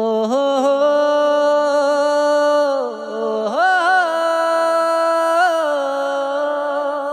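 Background score of a wordless vocal line holding long notes, with a short break about three seconds in, then a rising swoop and ornamental turns.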